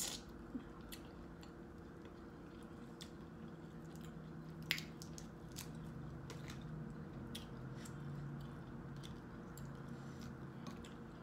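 Chewing and wet mouth sounds from eating sauced, boiled shrimp, with scattered soft clicks and smacks over a steady low hum.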